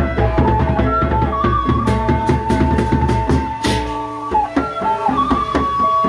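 Sasak gendang beleq ensemble playing: large double-headed barrel drums struck by hand in fast interlocking strokes, under a held, flute-like melody line that bends in pitch around the middle, with steady gong tones. A brief cymbal-like crash comes a little past halfway.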